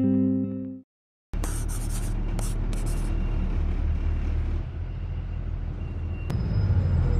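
Guitar music ends in a short cut to silence, then the steady low rumble of a moving vehicle begins, with a few short bursts of hiss early in it.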